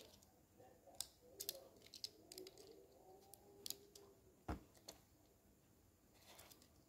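Faint clicks and taps of fingers handling a small die-cast toy car and working its opening doors, with one heavier knock about four and a half seconds in as the car is set down on the table.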